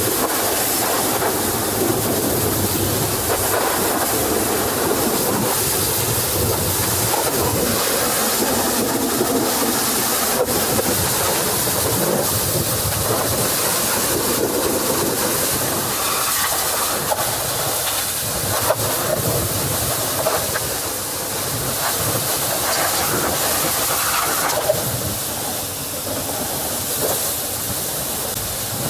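Pressure-washer lance spraying a truck's wheels and bodywork: a continuous hiss of spray splattering off metal and tyres.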